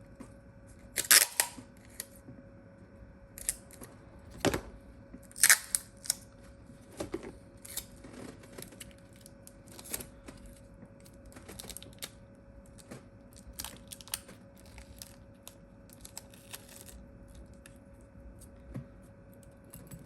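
Adhesive tape being pulled off and pressed into place on a smartphone's internal parts: scattered short crackles and small clicks, the sharpest about a second in and again around five seconds in, over a faint steady hum.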